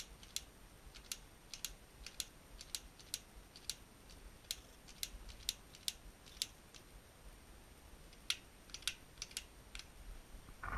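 Faint, irregular crackling ticks, roughly two a second, of wood pellets and fire-starter gel beginning to burn in a pellet stove's burn pot.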